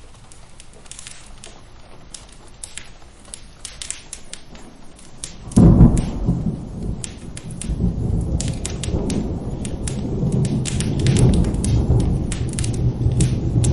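Steady rain with sharp crackles of a wood fire. About five and a half seconds in, a loud thunderclap breaks, then rolls on as a low rumble.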